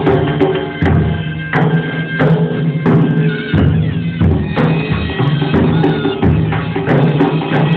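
Nagara, a large kettle drum, beaten in a repeating rhythm of sharp strokes over a steady droning tone.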